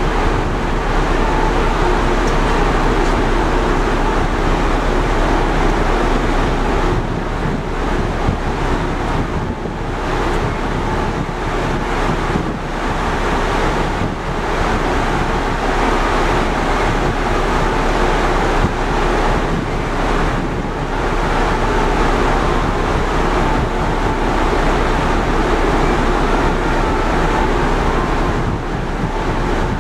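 Wind rushing over the microphone on the open deck of the Stena Superfast VIII ferry under way, over a steady hum from the ship's machinery.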